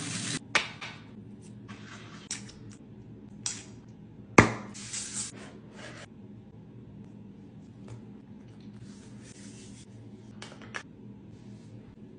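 Rustling and scraping of cardboard product packaging being handled and opened, in several short bursts, with one sharp click about four seconds in; after that only faint rustles.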